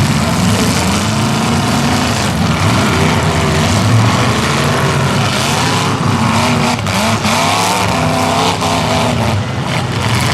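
Several demolition derby car engines revving up and down together, their pitches rising and falling over one another, with a few knocks of metal impacts in the second half.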